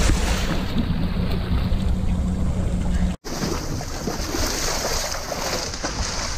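Water splashing and churning at a boat's side as a hooked billfish thrashes, with wind on the microphone. A steady low hum of the boat's engine runs under the first three seconds. The sound breaks off for an instant a little over three seconds in, then the splashing and wind resume.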